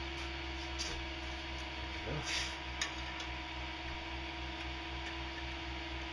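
A few light metal clicks and a short scrape as a flat steel blade and a stainless steel tube are handled against each other, over a steady hum.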